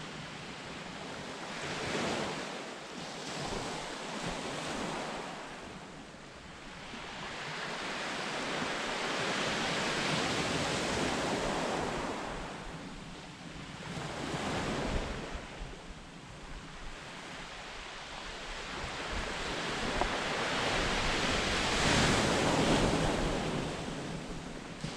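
Sea waves breaking and washing on the beach, swelling and fading every few seconds, with wind buffeting the microphone.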